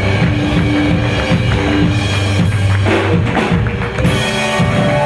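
Live rockabilly band of electric guitar, upright bass and drum kit playing a steady driving groove; about three seconds in the groove breaks off into a run of separate drum and cymbal hits, typical of the song's ending.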